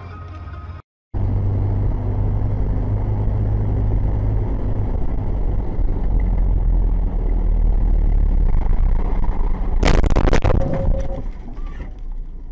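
Steady low rumble of a car's engine and road noise heard from inside the moving car, with a loud sudden burst of noise about ten seconds in. A brief cut to silence comes about a second in.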